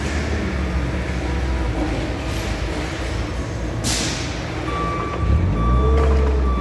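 Forklift running with a steady mechanical hum. A short hiss comes about four seconds in. About five seconds in a low drone rises in pitch and grows louder as the operator works the mast control levers, typical of the hydraulic pump motor coming on, and a steady high tone starts at about the same time.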